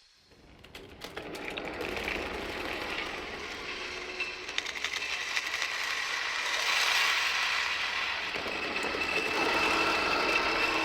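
Designed industrial horror sound effect of metal machinery and rattling metal, processed with distortion and reverb. It fades in with rapid clicking and clatter, then settles into a steady grinding rumble with ringing metallic tones.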